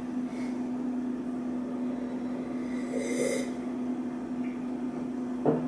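A man sips iced coffee from a glass over a steady low room hum, with a short breathy sip about three seconds in. Near the end there is a sharp knock as the glass is set down on the table.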